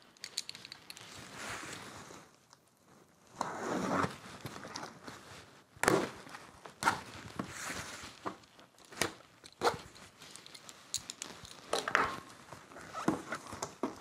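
A taped cardboard shipping box being opened by hand: rustling and scraping of cardboard and packing tape, broken by scattered sharp knocks and taps, with the flaps pulled open near the end.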